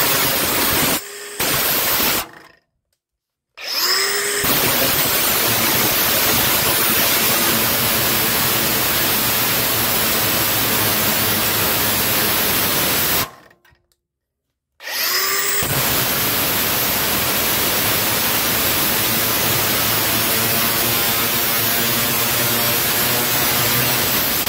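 Milwaukee M18 FUEL 6-inch cordless brushless angle grinder cutting rusty steel. It is switched on three times, and each start is a rising whine as the disc spins up into a steady, loud grinding noise. The first run is brief, and the tool stops about 3 s in and again about 13 s in.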